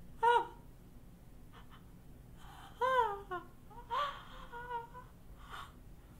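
An infant whimpering and crying in a few short, high-pitched cries with gasping breaths between, dying away near the end.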